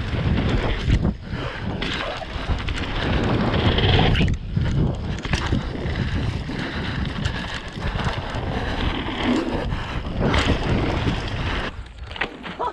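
Wind rushing over an action camera's microphone as a downhill mountain bike is ridden fast over rough trail, with the bike rattling and knocking throughout. The rush drops away near the end.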